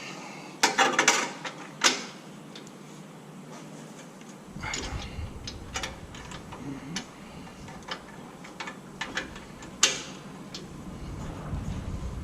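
Metallic clicks and clinks of a spark plug spanner being fitted and turned to unscrew a spark plug, with a tight cluster about a second in and scattered knocks after.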